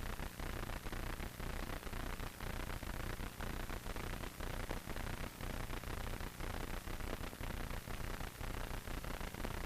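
Steady hiss with a rapid flutter and no other distinct sound: background noise of the recording.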